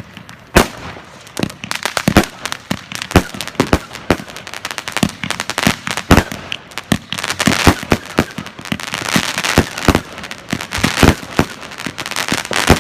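Fireworks going off: a rapid, irregular string of sharp bangs and pops, several a second, with crackling hiss between them that grows denser in the second half.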